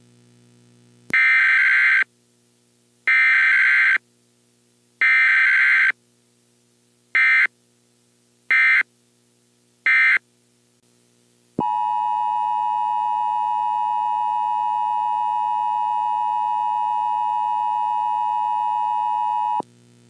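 Emergency Alert System tones: three long bursts of warbling digital data tones, then three short bursts, then the steady two-tone attention signal held for about eight seconds.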